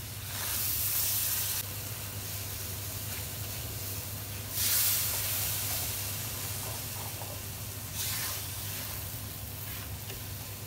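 Cream sizzling in a hot frying pan as it is stirred into sautéed mushrooms and a butter-and-flour roux. The sizzle holds steady, with louder surges of hiss about half a second in and again from about four and a half to eight seconds in.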